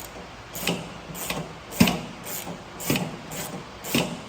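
Hand ratchet with a 17 mm socket tightening nuts, its pawl clicking with each swing, about two clicks a second.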